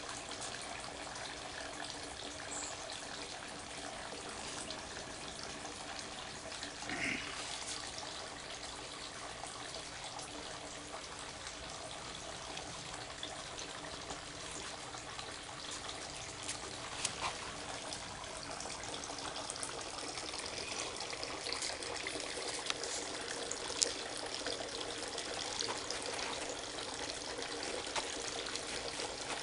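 Steady trickle of running water, with a few faint clicks now and then.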